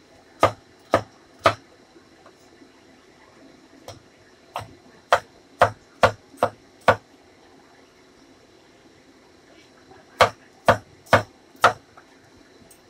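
Chinese cleaver chopping through a cucumber onto a wooden cutting board: sharp knocks in three runs of strokes, about two a second, with pauses between the runs.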